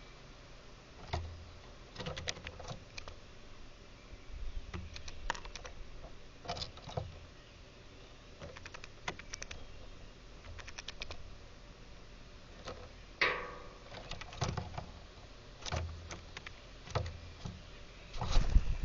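Small birds pecking and cracking seed at a feeder: irregular light taps and clicks, with a brief louder rustle about 13 seconds in and a louder cluster of knocks near the end.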